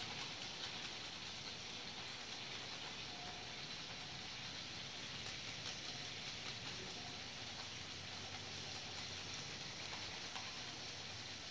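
Faint, steady sizzle with light crackles from a pan of butter and mashed potato cooking over a gas burner.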